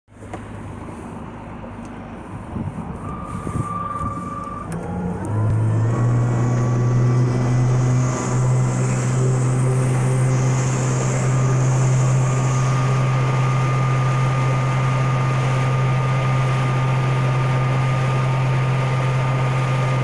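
Golden Motor EZ-S20 20 hp electric outboard picking up speed about five seconds in, then running steadily at speed with a low hum and a higher whine, over the rush of water and wind.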